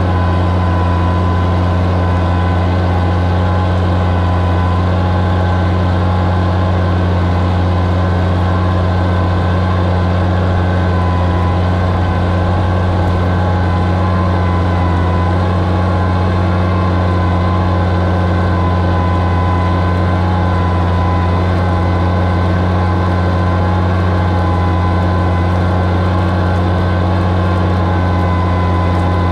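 Oliver 77 tractor's six-cylinder engine running steadily under load while pulling a plow through the soil, a constant low drone.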